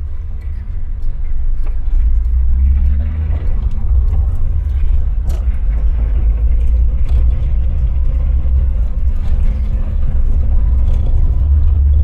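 A vehicle driving, heard from inside the cabin: a steady low rumble of engine and road. The engine's note rises briefly about three seconds in.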